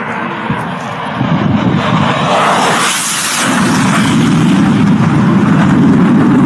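Military jet fighter making a low, fast pass overhead. The roar builds, peaks with a sharp high hiss about three seconds in, and then carries on as a heavy low rumble.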